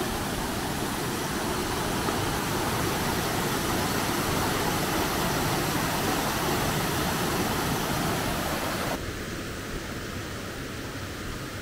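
Waterfall rushing: a steady roar of falling water. About nine seconds in it drops abruptly quieter and duller.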